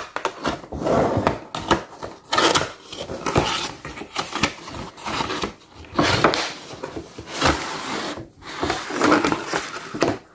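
Cardboard window box being handled and its inner display tray slid out: irregular rustling, rubbing and scraping of cardboard and plastic packaging.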